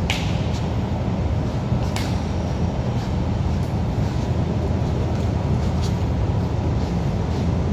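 Steady low rumble of background noise, with a sharp tap right at the start and a few fainter taps scattered through.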